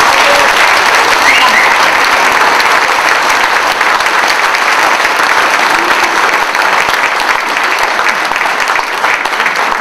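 Audience applauding, a dense, steady clapping that eases slightly toward the end.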